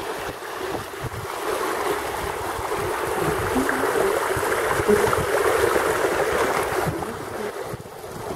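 Wind buffeting the microphone over small waves washing onto a sandy riverbank. A louder hiss swells for several seconds and drops away sharply about seven seconds in.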